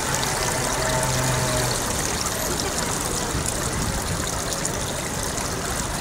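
Water trickling and running steadily in a thin sheet over paving stones into drain grates of a flat, ground-level fountain. A short low hum comes in about a second in.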